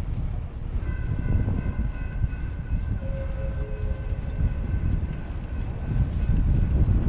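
Wind buffeting a bike-mounted action camera's microphone while riding, with a faint distant train horn sounding a steady chord from about a second in for some five seconds.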